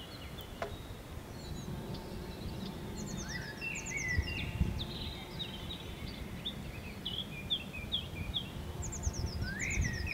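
Several wild birds singing: quick falling runs of high notes, twice, among scattered chirps and calls, over a low steady rumble of outdoor background noise.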